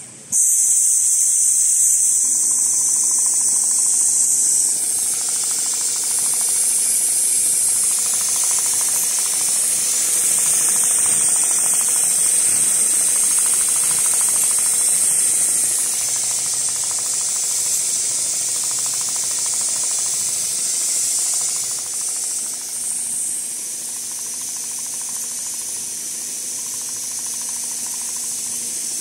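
CNC pattern sewing machine stitching leather, its motor giving a steady hum under a loud steady hiss. The hiss starts suddenly right at the beginning and eases somewhat in the last few seconds.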